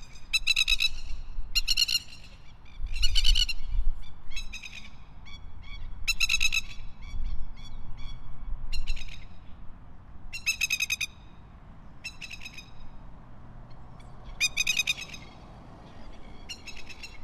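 Masked lapwings calling: short bursts of rapid, stuttering notes repeated every second or two, some loud and close, others fainter.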